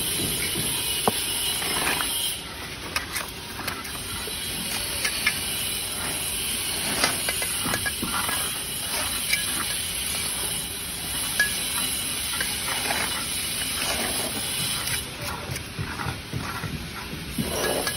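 Steel trowel scraping and scooping wet cement mortar and spreading it along a brick course. Now and then there is a sharp tap as a brick is set and knocked into place.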